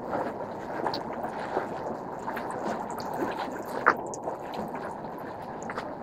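Shallow stream running and rippling over stones, with scattered light clicks and one sharper click about four seconds in.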